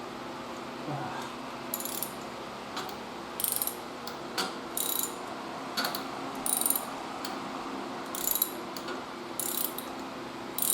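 Ratchet wrench clicking in short bursts, about one a second, as it works a spark plug loose.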